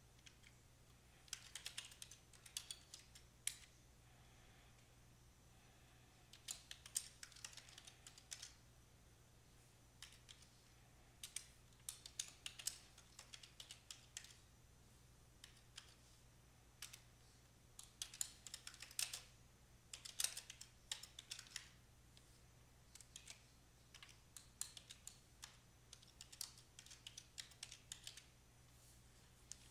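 Typing on a computer keyboard: about five short runs of keystrokes with pauses between them. Faint, over a steady low hum.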